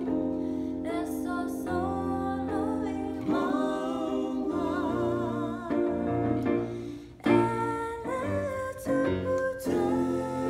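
A woman and a man singing a slow song together over held chords on an electronic keyboard, the sung notes wavering with vibrato.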